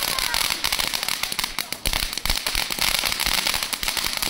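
Fireworks crackling: a dense, continuous run of sharp pops.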